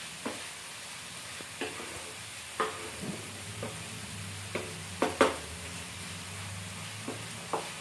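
Chicken pieces sizzling in masala in a nonstick frying pan while a wooden spatula stirs them: a steady sizzle with irregular scrapes and knocks of the spatula against the pan, the loudest a quick pair about five seconds in.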